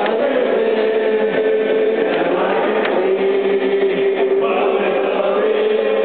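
A crowd of people singing together, long held notes that step to a new pitch every second or two, the voices ringing in a large stone rotunda.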